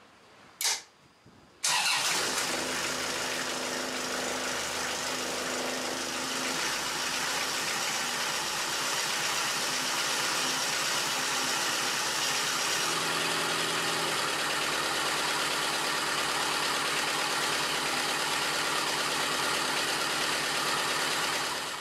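Kubota 2203 marine diesel engine starting about two seconds in after a brief sharp sound, then running steadily, its note shifting slightly twice. It is being test-run after its heat exchanger tube bundle was replaced, running all right with no leaks.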